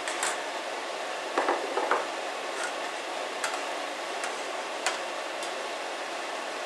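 A pot of water at the boil on a gas hob, a steady hiss, with scattered light clinks of a metal slotted spoon against the stainless steel pot as the carrots are stirred, a quick cluster of them about a second and a half in.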